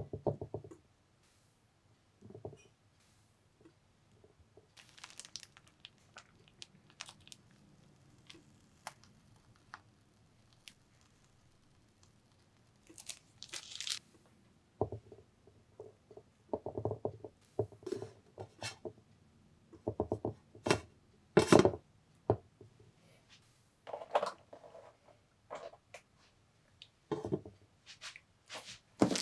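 A chocolate-cup sponge cake with whipped cream being handled, bitten and eaten close to the microphone. Scattered crisp snaps and short crackling bursts come sparsely at first, grow more frequent past the middle, and are loudest a little after two-thirds of the way in.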